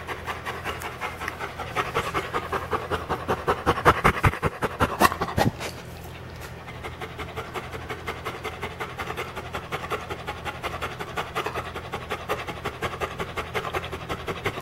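Chocolate Labrador retriever panting loud and fast, tired from hard exercise. The breaths come in a quick, even rhythm, loudest in the first few seconds and a little softer after that.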